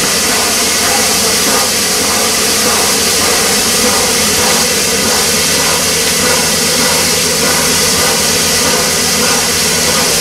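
Peppercorn A1 steam locomotive 60163 Tornado standing, with a steady loud hiss of escaping steam over a low steady hum.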